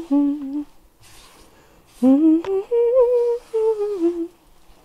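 A woman humming a tune to herself in two phrases of held, sliding notes, with a pause of about a second and a half between them.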